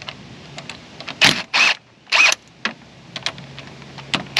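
Ridgid 18-volt cordless power tool run in three short bursts, a little over a second to about two seconds in, backing out the 13 mm bolts of a crankshaft pulley. Light metallic clicks come between the bursts.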